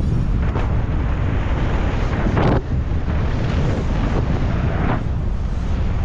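Heavy wind buffeting a rider-mounted camera microphone at speed on a downhill mountain-bike run. There are short louder surges about half a second in, about two and a half seconds in, and near the end.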